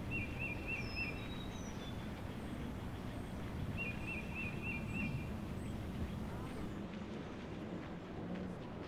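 Small songbird singing over steady low outdoor background noise: two short runs of four or five quick repeated chirps a few seconds apart, with a few higher single chirps between them.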